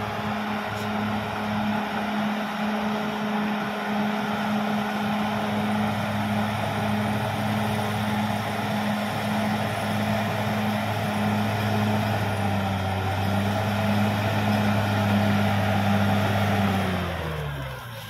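Caterpillar D6R XL bulldozer's diesel engine running steadily at working revs. About a second before the end, its pitch drops quickly as the engine is throttled down.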